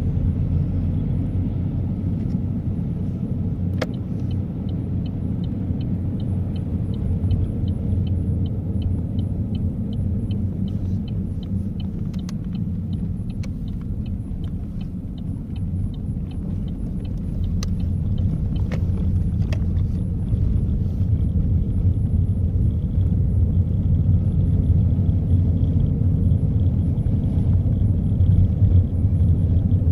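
Car driving, heard from inside the cabin: a steady low rumble of engine and road noise. From about four seconds in, a run of evenly spaced ticks goes on for about ten seconds, and the rumble grows louder in the second half.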